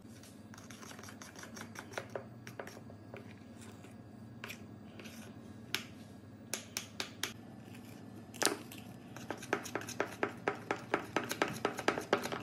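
Metal spoon clinking and scraping against a bowl while folding flour into thick chocolate brownie batter. Scattered clicks at first, then quicker, regular clinks of about four a second over the last few seconds as the stirring speeds up.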